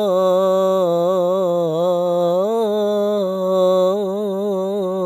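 A man's unaccompanied voice singing the adhan in maqam Jiharkah, sustaining one long melismatic vowel of 'ashhadu an la ilaha illallah' without a break. The pitch turns in small ornamental wavers, with a brief rise about two and a half seconds in. Recorded on an old mobile phone.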